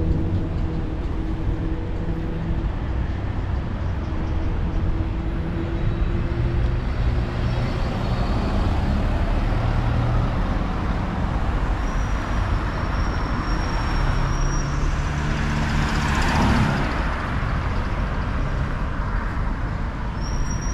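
City road traffic: cars and a van driving past with engines running and tyre noise, one vehicle passing close about three-quarters of the way through.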